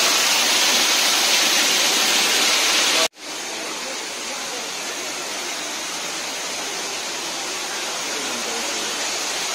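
Steady rush of falling water, as from a waterfall or cascade. It breaks off sharply about three seconds in and resumes a little softer.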